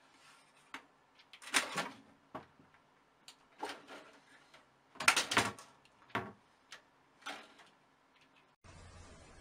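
A cat leaping at a computer tower case, its paws and claws knocking and scraping against the case in a run of irregular thumps, loudest about one and a half and five seconds in. A steady hiss starts near the end.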